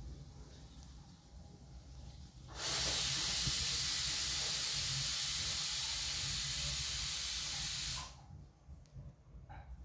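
A steady hiss that starts abruptly about two and a half seconds in and cuts off abruptly about five seconds later.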